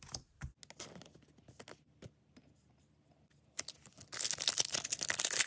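A foil trading-card booster-pack wrapper being crinkled and torn open, a dense crackling that starts about four seconds in. Before it, a few light clicks of cards being handled and set down.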